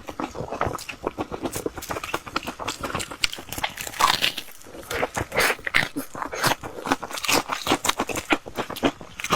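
Close-miked biting and chewing of crisp fried bread: a continuous run of quick crunches and crackles.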